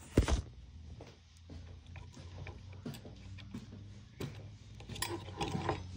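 A loud knock just after the start as the recording phone is set down on a wooden desk, followed by faint scattered clicks and handling knocks, a few more of them near the end.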